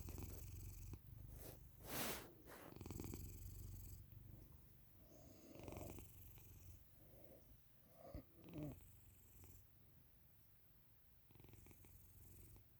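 A cat snoring faintly, a soft breath every second or two, growing quieter in the second half.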